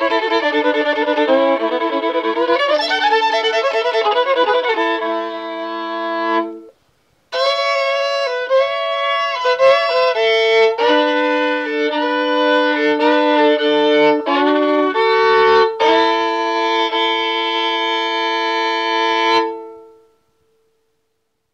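Fiddle playing a hillbilly-blues tune in sustained double stops, the bow holding two notes at once. It breaks off briefly about seven seconds in, picks up again, and ends on a long held note that dies away about twenty seconds in.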